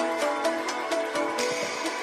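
Background pop music: steady instrumental backing with a regular beat, no singing.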